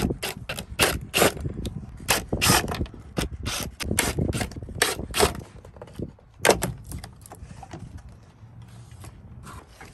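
Hard plastic parts clicking, knocking and scraping as a truck console lid's plastic cover panel is handled and worked free after its screws are out. The clicks come thick and irregular for about five seconds, then a single loud one, then fainter rubbing.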